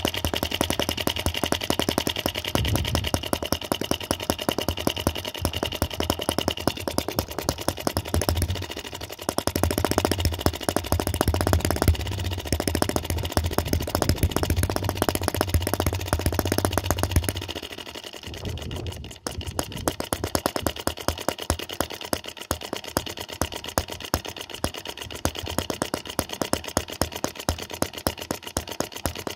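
Microcosm M25 sideshaft four-stroke model gas engine running with fast, even firing. About 18 seconds in it slows sharply, almost stalling, then keeps running at a slower, evenly spaced beat as its carburettor is worked through its speed range.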